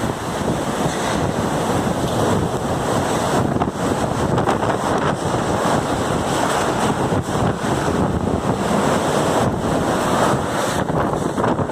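Heavy rain falling steadily: a dense, even hiss with no pauses.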